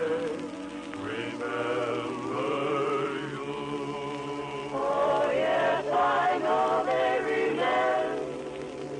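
Vocal group singing a western song in close harmony, the voices swelling louder about halfway through.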